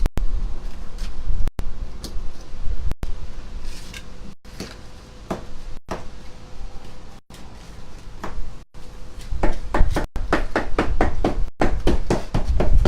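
Scattered knocks and handling noises from hand work on a wooden window frame, then a quick run of short, even strokes, about four a second, near the end.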